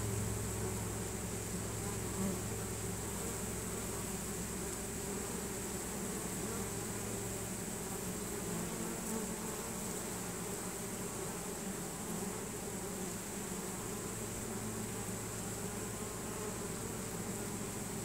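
A honey bee swarm buzzing with a steady, continuous hum as the bees crowd into a hive box.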